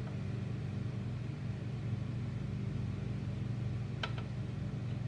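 Steady low mechanical hum of room equipment such as ventilation, with one short faint tick about four seconds in.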